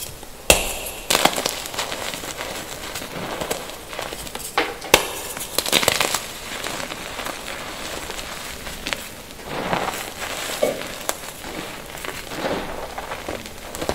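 Hands crushing blocks of gym chalk: sharp cracks in the first five seconds, the loudest about half a second in and near five seconds, then stretches of crunching and crumbling as chunks and powder are squeezed in the palms.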